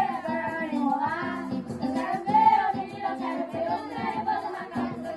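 Children singing a carimbó song together, backed by a live band with drums keeping a steady beat.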